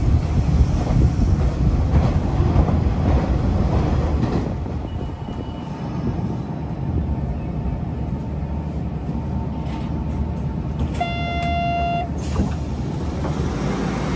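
Electric commuter train running with a heavy low rumble for the first few seconds. The rumble then drops to a steady lower hum as the train stands at the platform. About eleven seconds in, a single steady electronic tone sounds for about a second.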